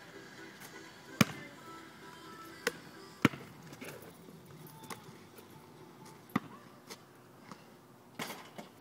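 A basketball bouncing on pavement, a handful of sharp bounces at uneven intervals with a quick cluster near the end, over faint background music.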